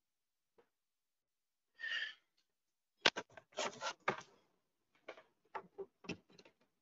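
Clicks and knocks of handling equipment near the microphone, a tight cluster from about three seconds in and scattered single clicks after, with a short breath or sigh about two seconds in.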